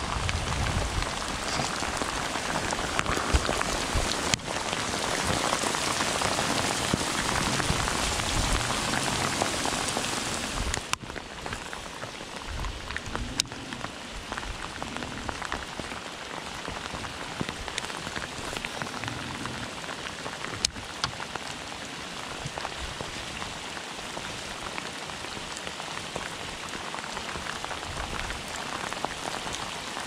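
Rain falling steadily on the river surface, a constant hiss of drops; it drops noticeably in level about eleven seconds in.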